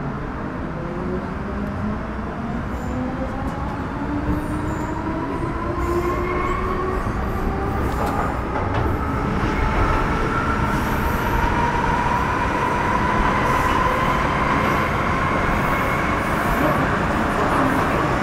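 Metro Cammell M-Train electric multiple unit running on the rails with its GEC GTO chopper traction equipment whining in several tones that rise steadily as it accelerates. The sound grows slowly louder over the rumble of the wheels on the track.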